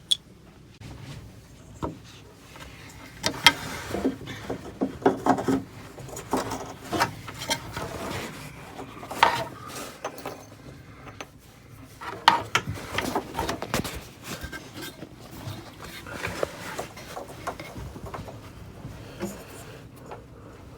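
Handling noises from hands working with parts in a small space: irregular clicks, knocks and rubbing, clustered in a few busy spells with quieter stretches between.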